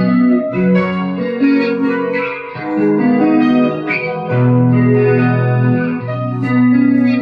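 Instrumental music of held, sustained chords in a keyboard- or organ-like tone, changing every second or two.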